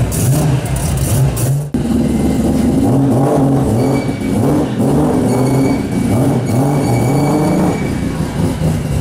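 Turbocharged Mazda 20B three-rotor rotary engine in an FD RX7 running on a chassis dyno, its revs rising and falling in short throttle blips.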